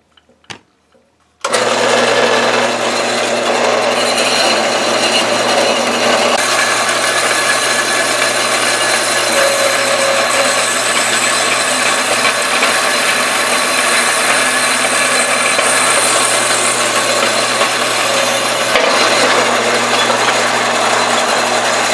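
Vertical bandsaw starting up about a second and a half in and cutting through the swivel-ball end mount of a hydraulic cylinder: a loud, steady saw noise over a low hum, which stops at the end as the mount is cut off.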